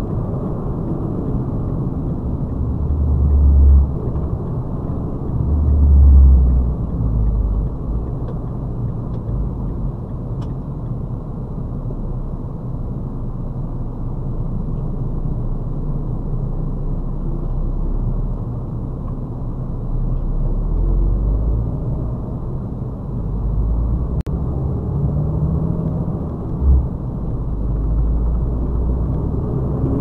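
Cab noise of a KAMAZ 54901 tractor unit on the move: a steady, muffled rumble of the diesel engine and the road, with a few louder low thumps. The truck slows almost to a stop and pulls away again.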